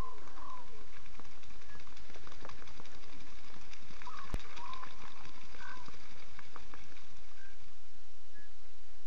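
Young cubs calling, a scattering of short squeaky contact calls repeated several times over a steady hiss. A single sharp click about four seconds in.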